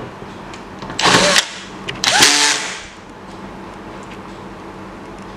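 Power drill-driver driving screws into a TV's plastic back cover, in two bursts: a short one about a second in and a longer one about two seconds in, each with a rising motor whine.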